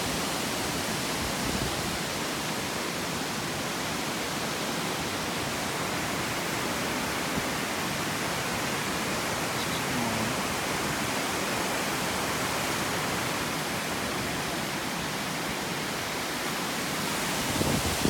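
Tall waterfall plunging down a cliff onto rocks: a steady, even rush of falling water.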